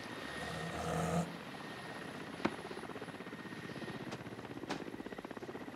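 Helicopter rotor throbbing steadily in a fast, even pulse. A short pitched sound comes in the first second, and a single sharp click about two and a half seconds in.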